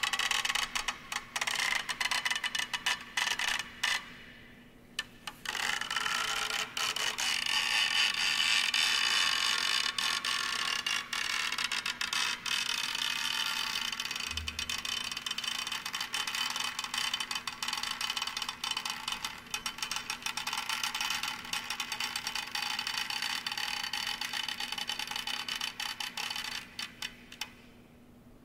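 Dense ratcheting and clicking of small mechanical devices on a wooden board, worked by strings the dancer pulls. It runs on with a brief gap early on, then thins out and dies away near the end, over a steady low hum.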